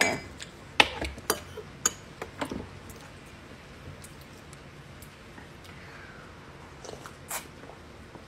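Light clicks of a metal spoon against a ceramic oatmeal bowl, several in the first two and a half seconds, with a few more small knocks about seven seconds in and quiet eating sounds between.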